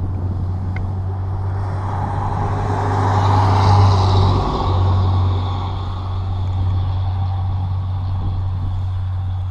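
A steady low engine hum, with a rushing noise that swells and fades over a few seconds around the middle.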